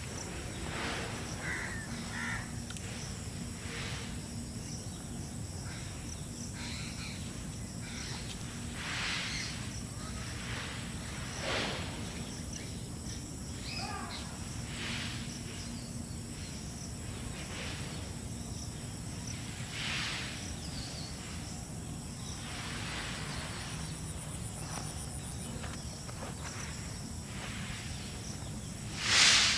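Outdoor ambience by water: a steady high, thin drone, likely insects, under a constant hiss, broken by several short noisy sounds. The loudest of these comes near the end.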